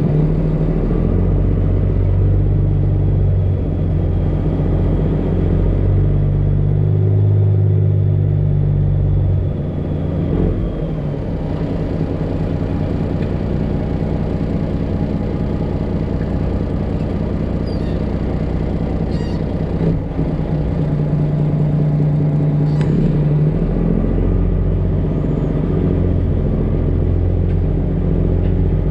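Freightliner Classic XL semi truck's diesel engine running at low speed, heard from inside the cab. Its note eases off about ten seconds in and picks up again near the end as the truck maneuvers.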